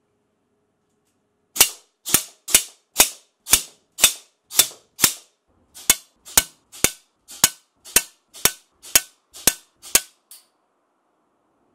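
A homemade syringe-powered airsoft gun firing a string of about seventeen sharp shots, roughly two a second, with a short pause partway through.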